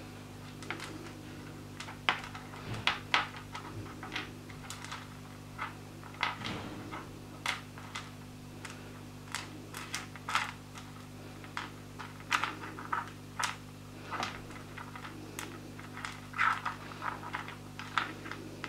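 Irregular small clicks and taps of wet rough opal pieces being handled, picked up and set down again by hand, some in quick clusters, over a steady low hum.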